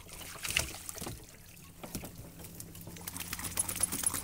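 A wet dog clambering out of the water into a small metal boat over a boarding ramp on the gunwale: knocks and scrapes of paws and body on the hull and deck, with water trickling and dripping off its coat. The knocks come scattered, with one sharp one about half a second in and a flurry near the end as it steps onto the deck.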